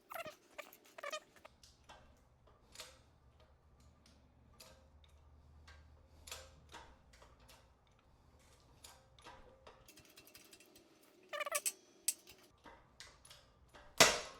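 Old wheel bearing being pressed out of its hub on a shop press: scattered clicks and knocks as the press works, then one loud sharp bang near the end as the bearing lets go.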